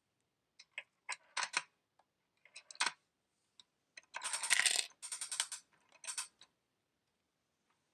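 Coins clinking as they drop into a miniature Carddass card vending machine: a string of sharp metallic clicks, then a longer rattling clatter about four seconds in, and a few last clicks.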